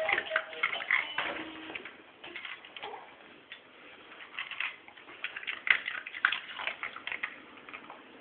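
Plastic baby gym toys clicking and rattling irregularly as a baby bats at them, with the last notes of the toy's electronic tune at the start.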